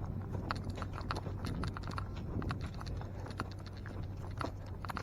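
Cattle crunching ear corn: a run of irregular sharp cracks and crunches, over a steady low hum.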